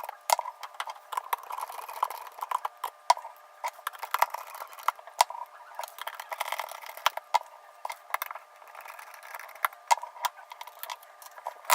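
Precision screwdriver with a Phillips bit backing tiny screws out of an iPhone 6: many small, irregular metallic clicks and ticks as the bit seats, turns and taps against the phone's internals.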